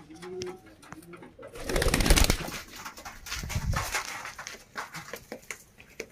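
Pigeon cooing, low and repeated, for about the first second. About a second and a half in comes a loud rustling burst with a second, lower one a little later, then scattered light taps.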